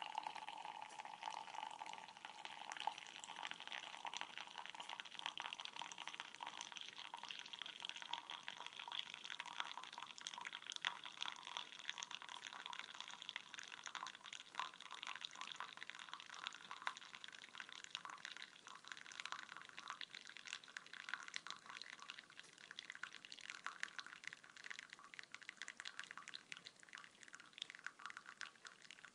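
Coffee trickling in a thin stream into a cup: a steady patter of many tiny drips and splashes, turning into sparser separate drips near the end.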